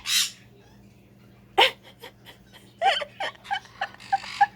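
Pet parrots making short, separate sounds: a breathy hiss, a sharp call, then a quick run of chirps and clicks.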